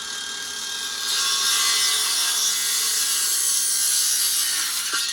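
Power saw cutting through lumber: a steady hissing cut with a motor whine, getting louder about a second in and stopping near the end.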